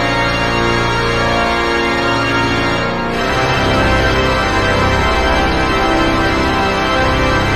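Pipe organ playing sustained full chords, moving to a new chord about three seconds in.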